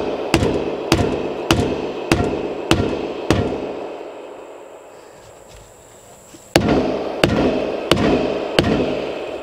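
An orange mallet strikes the end of a 4-inch PVC pipe, driving it into a tight rubber Uniseal adapter in the wall of a plastic water tank. There are six sharp blows a little under two a second, a pause of about three seconds, then four more.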